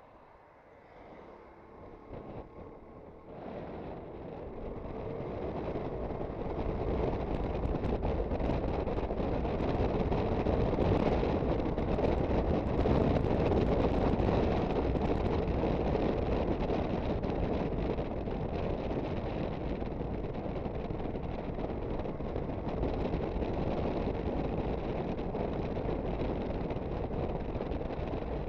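An Aprilia Sportcity Cube 250 scooter under way, its single-cylinder engine and road noise mixed with wind rushing over the microphone. The sound starts faint, grows louder over the first several seconds and then holds steady.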